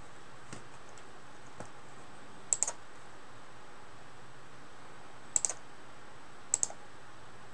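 Clicking at a computer over a steady hiss: two faint clicks, then three quick clusters of two or three sharp clicks, the last two about a second apart.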